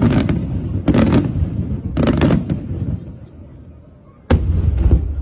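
Aerial firework shells bursting: a loud report at the start, then one about a second in and another about two seconds in, each trailing off in an echoing rumble. After a short lull, a further loud burst about four seconds in, followed by a second report half a second later.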